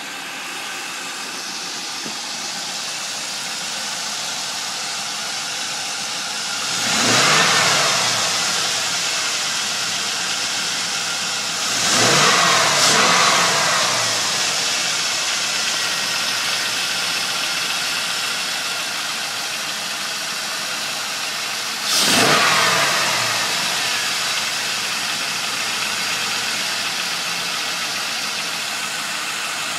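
A 2000 Camaro Z28's LS1 5.7-litre V8 idling and revved three times, the middle rev a quick double blip, with the revs sinking back to idle after each. As the revs fall there is a weird tick like a metal clap, which a friend of the owner takes for rod knock.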